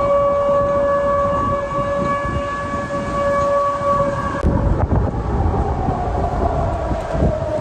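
Air-raid siren sounding: a steady held tone, then, after a sudden change about four and a half seconds in, a wail that slowly sinks and rises again in pitch, over a low rumble of wind and street noise. It signals an air-raid alert.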